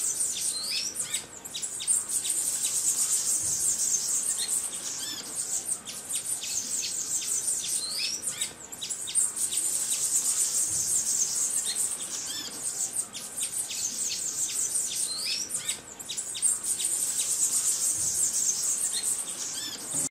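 Insects buzzing high and steady, swelling and fading every three to four seconds, with short rising bird call notes about every seven seconds and scattered chirps.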